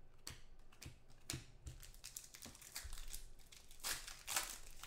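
Foil trading-card pack wrapper crinkling while cards are handled. A run of short crackles and light snaps, loudest near the end.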